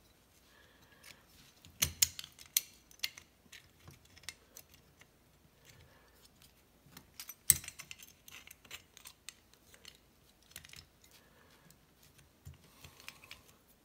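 Small metal snowmobile brake parts clicking and clinking as they are handled and worked together by hand: a self-adjuster piece being fitted through its spring in the brake caliper. Irregular light clicks, with sharper ones about two seconds in and about seven and a half seconds in.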